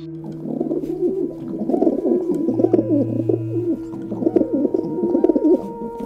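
Doves cooing, several voices overlapping in a dense chorus of low coos.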